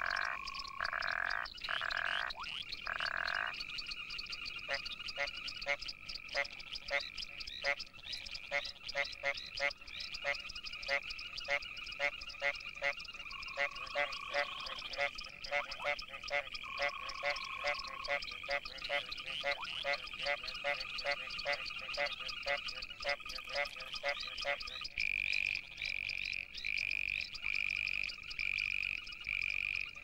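Frogs of several kinds calling in a chorus. A few long calls open it, then come short pulsed calls about two a second over a steady high trill. About 25 seconds in, the calls change to a slower, regular series of high notes.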